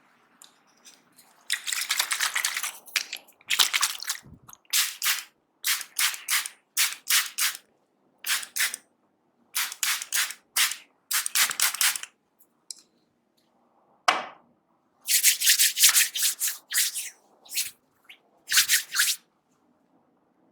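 Hair cracking during a head massage: strands of hair are twisted and tugged close to the scalp, giving a series of sharp crackling bursts, about a dozen, each under a second, with short pauses between.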